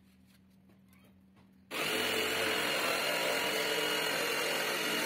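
Corded jigsaw starting up about a second and a half in and running steadily as it cuts through a sheet of plywood, a constant high tone over the cutting noise.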